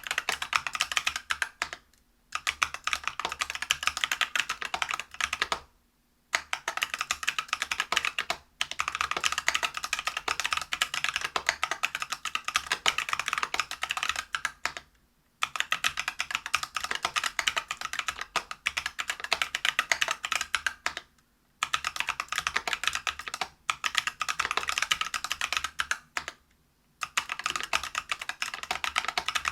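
Fast typing on a Whale 75 mechanical keyboard with stock, unlubed Neapolitan Ice Cream 63.5 g tactile switches, a brass plate and PBT keycaps. The keystrokes come in rapid runs of a few seconds, broken by short pauses.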